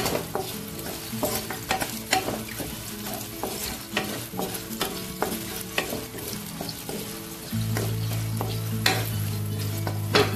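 Sliced okra sizzling in hot oil in a pan while a wooden spatula stirs it, with repeated clicks and scrapes of the spatula against the pan. A steady low hum grows louder about three quarters of the way through.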